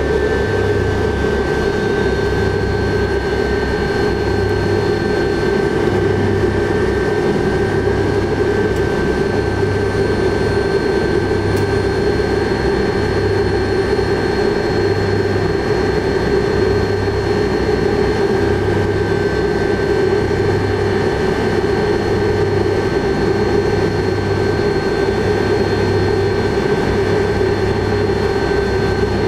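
Cabin sound of a Tupolev Tu-154B-2 on the ground with its Kuznetsov NK-8-2U turbofan engines running at a steady low power, a steady rumble with high turbine whine tones. Under it a low hum pulses on and off about once a second.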